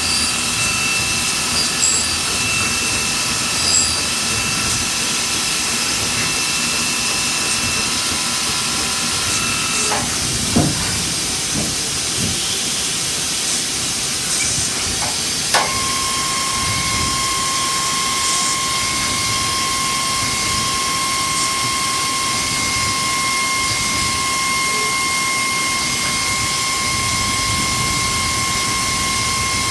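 CNC live-tooled turning center machining a PEEK part: a steady hiss under a constant machine whine. About a third of the way in the whine stops with a brief falling sweep, and about halfway in a new, lower steady whine starts with a click.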